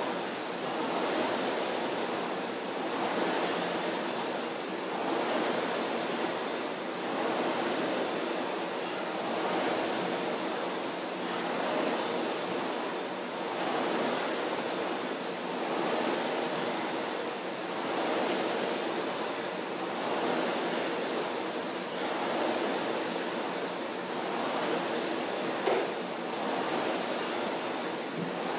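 Concept2 indoor rower's air flywheel whooshing, swelling with each drive about once every two seconds at a steady stroke rate. A brief click near the end.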